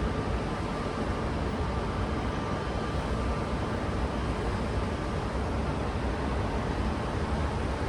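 Steady rushing wash of ocean surf heard from a height, with a low rumble of breeze on the microphone.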